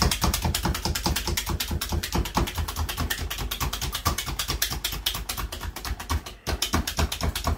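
Handheld plunger-style blade meat tenderizer pressed down again and again into a raw chicken breast on a cutting board: a fast run of clicks with dull thuds, several a second, its spring-loaded blades cutting into the meat to break down its tendons. The clicking pauses briefly about six and a half seconds in.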